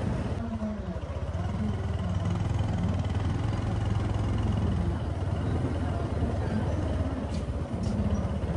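Small motorbike engine running steadily at low speed, a constant low hum under rushing noise.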